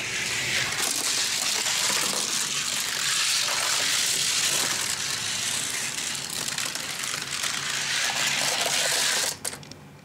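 Two 1:64 Hot Wheels diecast cars, a Bone Shaker and a T-Bird Stocker, rolling fast down a gravity race track: a steady rushing hiss of small wheels on the track that drops away about nine seconds in as they reach the finish.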